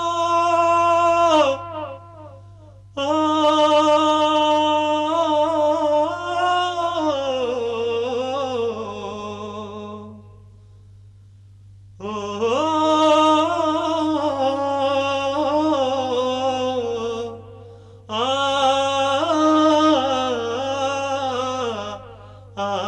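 A solo voice singing a slow song in long, wavering, ornamented phrases, with short pauses between them and a steady low hum underneath.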